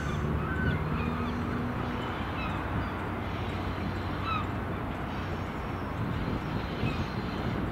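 A distant HST diesel power car running as the train approaches, giving a steady low drone, with scattered short bird calls over it.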